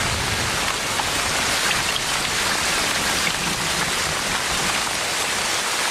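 Heavy tropical rain falling steadily on the rainforest, a dense even hiss.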